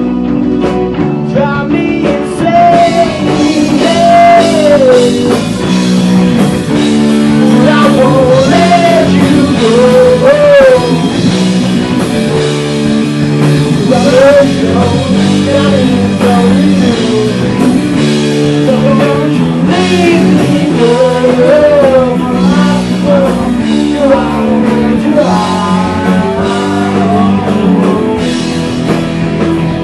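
Indie rock band playing a song: a male lead vocal over electric guitars, bass guitar and a drum kit keeping a steady beat.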